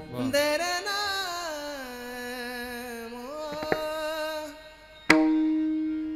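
Marathi kirtan singing: a solo voice holds a long wordless line that slides up and down in pitch. About five seconds in, a single sharp percussive strike is followed by a steady ringing note that fades slowly.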